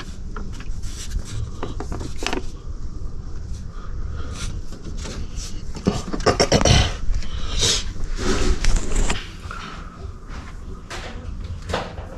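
Clicks, knocks and scraping of parts and tools being handled while seals are fitted on the engine, busiest between about six and nine seconds in, over a steady low rumble.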